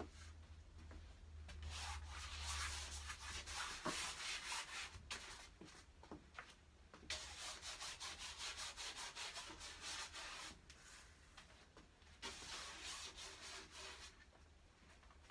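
Paintbrush scrubbing across a large canvas in quick repeated strokes, a dry scratchy rubbing that comes in three stretches with short pauses between.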